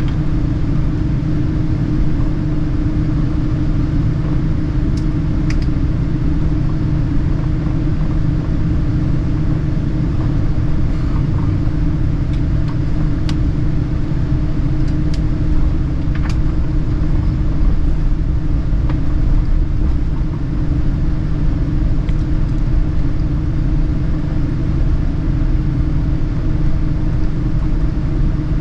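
Cabin noise of a Boeing 787-9 taxiing: a steady low rumble from the engines at taxi power and the rolling airframe, with a steady hum running through it and a few faint clicks.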